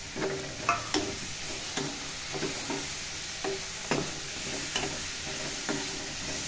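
A steel slotted spoon stirs and tosses chopped bitter gourd, onion and tomato in a frying pan, clinking and scraping against the pan at irregular moments, over a steady frying sizzle.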